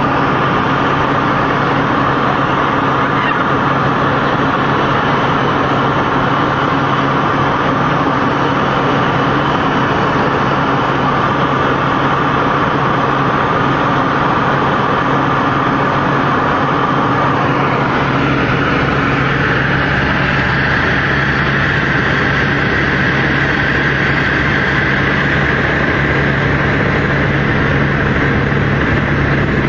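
Helicopter turbine and rotor noise heard from inside the cabin in flight: a loud, steady drone with a constant low hum. A little past halfway its tone shifts, with more low rumble and a higher whine above.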